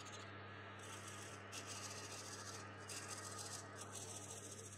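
Metal lathe running with a steady motor hum while a tool bit cuts the end of a spinning metal rod turned from a bolt. The cut comes as a hiss in several short spells, starting about a second in.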